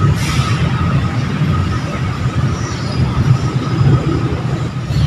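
Outdoor background noise: a steady low rumble with a faint, steady high-pitched tone running through it, and a brief hiss right at the start.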